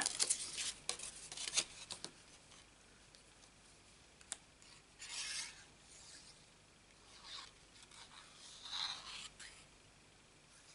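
Hands rubbing and pressing a cardstock panel flat, with a run of crackles and rubbing for the first couple of seconds. Then comes near-quiet broken by a few short, soft swishes of card being handled and slid.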